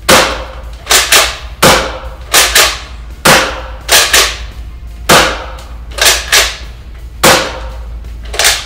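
Nerf Rival Mercury bolt-action foam-ball pistol firing five times, about 1.7 s apart, each shot a sharp pop followed by a quick double clack as the bolt is pulled back and pushed forward to prime the next round.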